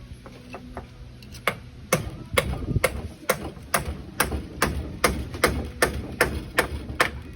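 Hammer blows struck in a steady rhythm, about two to three a second. There are roughly fourteen sharp strikes, starting about a second and a half in and stopping just before the end.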